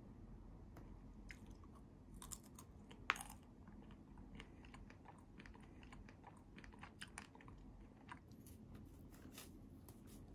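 A person eating: faint chewing and crunching, with many small irregular clicks and one sharper click about three seconds in.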